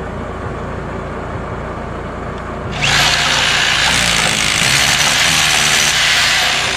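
DeWalt D25263K SDS hammer drill drilling, starting abruptly about three seconds in, running loudly for roughly four seconds and stopping near the end, over a steady low background noise.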